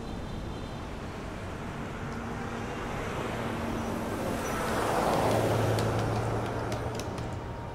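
Street traffic with a vehicle passing close by, its noise swelling to a peak about five seconds in with a low engine hum, then fading. Near the end come light clicks of typing on a computer keyboard.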